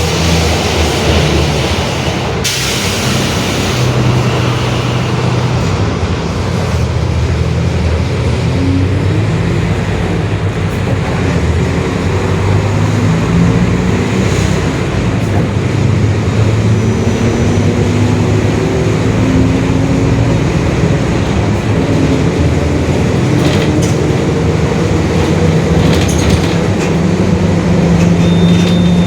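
Mercedes-Benz OF-1721 Bluetec 5 bus's four-cylinder diesel engine pulling, its pitch climbing in steps as the bus accelerates through the gears, with the drone of the rear differential under it. A hiss of air cuts off sharply about two seconds in.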